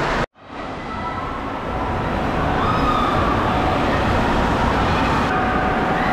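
Echoing indoor water park din: water rushing down a raft slide's flume under a steady hubbub of distant voices. It drops out for a moment just after the start, then swells back over about two seconds.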